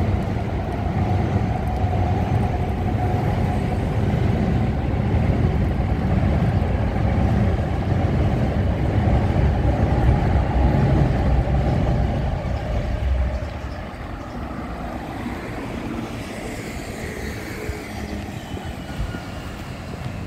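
Loud, steady low rumble of city traffic noise, dropping off suddenly about thirteen seconds in.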